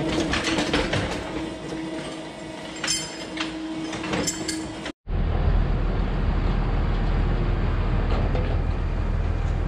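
Barn machinery: a steady electric hum with repeated metal clanks and clicks from a rail-mounted cubicle-cleaning machine being worked on. After a sudden cut about five seconds in, a steady low rumble takes over.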